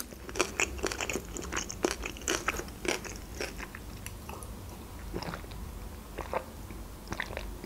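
Close-miked chewing of a mouthful of sushi roll: wet, crunchy mouth clicks, densest in the first three seconds. They then thin out to a few quieter mouth sounds while she sips a drink.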